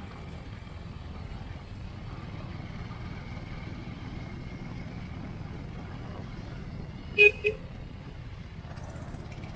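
Motorcycle engine running steadily under the rider, with wind and road noise. About seven seconds in, a vehicle horn beeps twice in quick succession.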